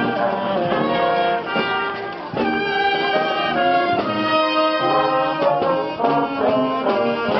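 Brass band playing a melody in held notes, with trombones and trumpets sounding together.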